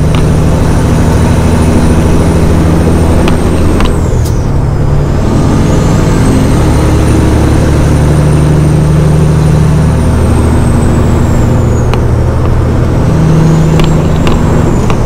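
Caterpillar 6NZ inline-six diesel with a stage 1 turbo, pulling a semi truck at highway speed, heard inside the cab. A high turbo whistle rides over the engine, drops away sharply about four seconds in and again about twelve seconds in, then climbs back.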